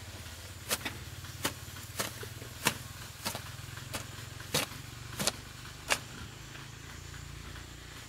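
A hand hoe chopping into the soil in a steady rhythm, about one and a half strikes a second, nine strikes that stop about six seconds in. Under it runs a steady low engine hum.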